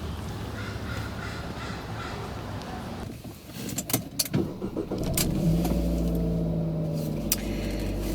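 Car engine running, with a few sharp clicks and knocks around four seconds in. The engine then grows into a louder, steady low hum from about five seconds.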